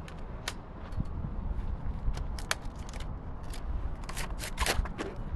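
Irregular short clicks and crackles from a trash grabber tool being worked against a metal sign, bunched most densely near the end. A low rumble of traffic runs underneath.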